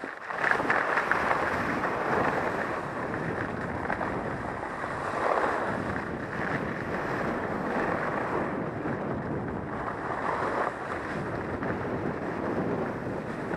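Wind rushing over the microphone and skis sliding and scraping over packed, groomed snow during a downhill run, the rushing noise swelling and easing through the turns.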